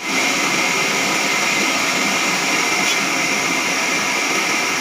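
Band sawmill running with a steady, hissing whine.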